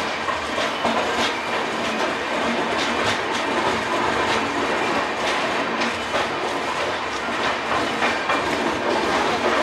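A train rolling past on the adjacent track, its wheels clattering over rail joints in a steady stream of clicks and rumble.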